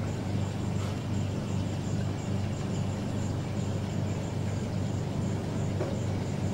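Aquarium pump running with a steady low hum and an even hiss over it, with a faint click about a second in.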